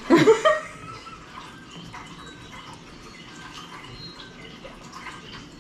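A person sipping hot chocolate from a mug, with faint small liquid and slurping sounds. A brief voice is heard at the very start.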